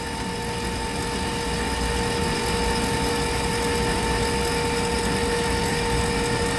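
AirDog II-4G DF-165 fuel lift pump, a brushed DC electric pump, running steadily with an even hum, about 64 decibels at close range, over a low rumble.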